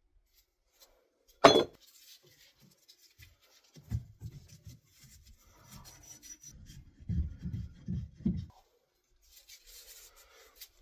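Hand work on a copper water pipe: one sharp metallic clank, then a few seconds of low scraping and rubbing.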